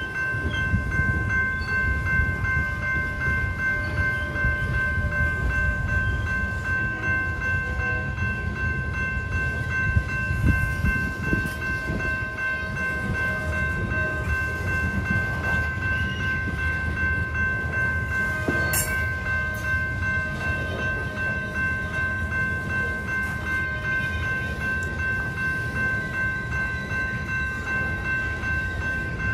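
A General Signals type 2 electronic crossing bell ringing continuously over the steady low rumble of covered hopper cars rolling past on the rails. A single short, sharp metallic noise cuts through about two-thirds of the way in.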